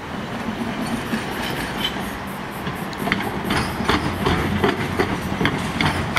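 Electric suburban train passing close by, its running noise swelling in at the start. From about three seconds in, its wheels clack over rail joints about two to three times a second.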